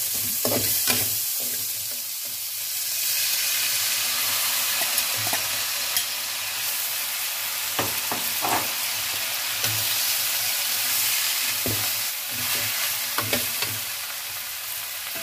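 Greens sizzling in hot oil in a metal wok while being stir-fried. A steady hiss, louder from about three seconds in, is broken by irregular clinks and scrapes of a metal spatula against the wok.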